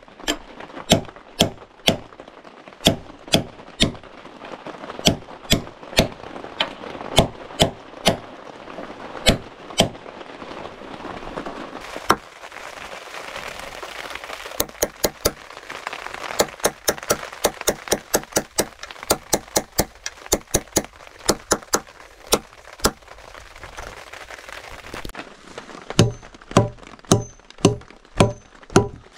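Hammer driving nails into wooden logs: a long run of sharp, ringing blows at a steady rhythm, about one and a half a second at first, quicker and lighter through the middle over a steady hiss, and heavier, duller blows near the end.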